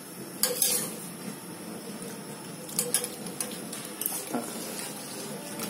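A spoon clinking and scraping against a steel cooking pot of vegetables, a few sharp strokes about half a second in, around three seconds and around four seconds, over a steady background hiss.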